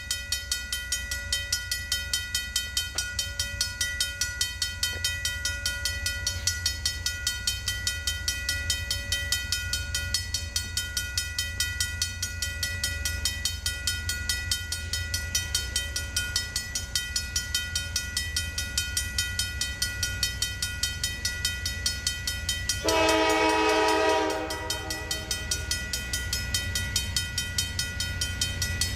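Grade-crossing warning bell ringing in rapid, even strokes while the crossing lights flash. About 23 seconds in, the approaching locomotive's horn sounds one chord blast of about a second, the loudest sound.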